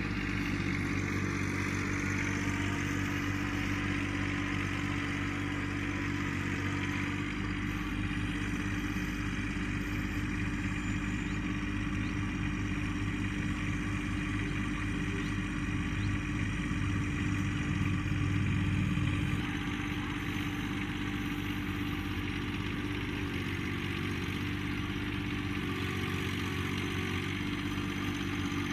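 John Deere compact tractor's diesel engine running steadily as it drives a front-loader hay fork into piles of grass clippings and lifts a load. The engine note grows a little louder for a few seconds about two-thirds of the way through.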